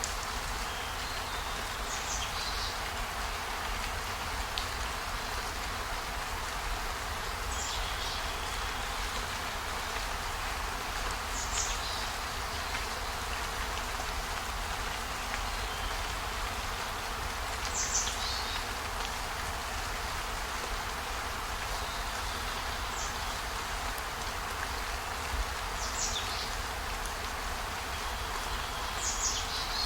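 Steady rain hiss, with a short high-pitched chirp every few seconds.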